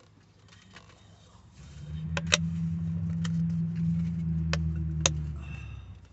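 Low engine rumble that swells up about a second and a half in, holds steady, then fades away near the end, like a motor vehicle passing close by. A few sharp clicks sound over it.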